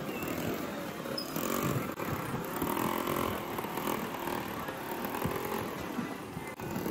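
Busy street ambience: the engines of passing vehicles, among them a motorcycle, running past, rising and falling in pitch.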